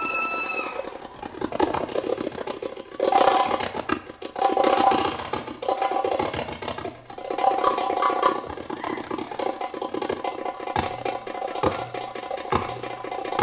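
Darbuka (Arabic tabla, goblet drum) played solo with fast rolls of sharp hand strokes. Near the end, deeper strokes fall about once a second.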